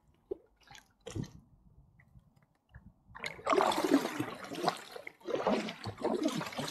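Water splashing and trickling around a kayak. It comes in about three seconds in, after a nearly quiet stretch with a few small ticks.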